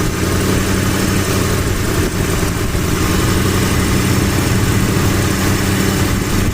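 A 1979 MG's engine idling steadily while it warms up to temperature.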